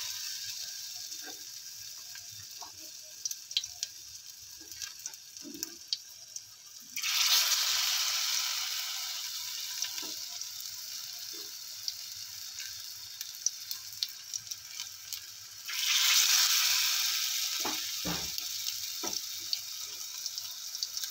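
Battered pointed gourd slices frying in hot oil: a steady sizzle that flares up loudly twice, about seven and sixteen seconds in, as each new battered slice goes into the oil, then dies back slowly. Small clicks run through it.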